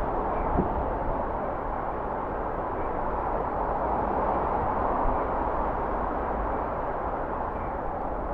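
Steady city traffic noise, an even rumble and hiss with no bell strikes.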